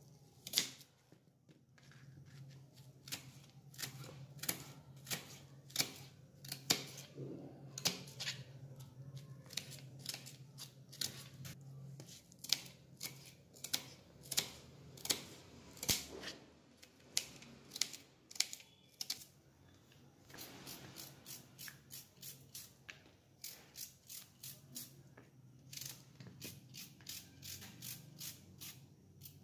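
Small kitchen knife slicing raw onion on a plastic chopping board: a run of crisp, irregular clicks, a few each second, as the blade cuts through the onion and taps the board.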